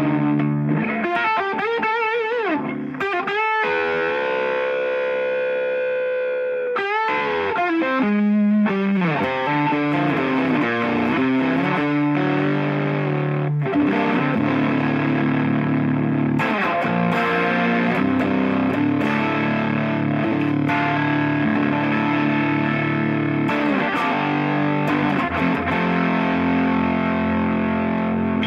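Electric guitar played through stacked overdrive pedals (Nobels ODR Mini, Wampler Euphoria, Wampler Pantheon) into a Quilter Superblock US amp and a Jensen Blackbird Alnico 12-inch speaker, giving a distorted, tube-like breakup. Bent, wavering single notes in the first several seconds give way to sustained chords from about nine seconds in.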